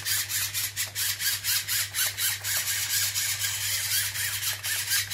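Hand pepper mill grinding white peppercorns: a dry, grating crunch repeated in quick, regular twists.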